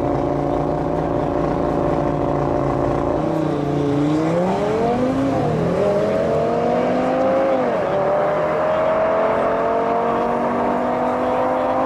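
Audi RS3 8V's turbocharged 2.5-litre five-cylinder engine and exhaust, holding a steady note for about three seconds, then accelerating: the pitch climbs and drops back twice as it shifts up through the gears, then climbs slowly again.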